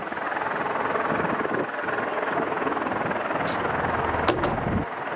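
Jet engine noise from a Mitsubishi F-2 fighter rolling along the runway, a steady roar. A brief low thump with a click comes about four seconds in.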